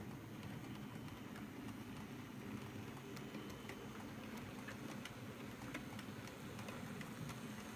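H0-scale model diesel locomotive pulling a train of tank wagons along the track: a steady low rumble of the motor and wheels, with scattered faint clicks.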